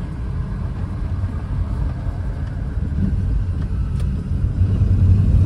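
Car driving, heard from inside the cabin: a steady low rumble of engine and road noise, growing louder near the end.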